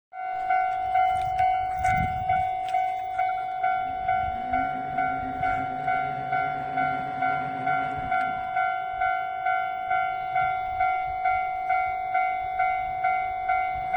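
Japanese level-crossing warning bell ringing in an even, rapid pulse of one electronic tone, about two or three strokes a second. From about four seconds in to about eight seconds a lower drone sounds under it.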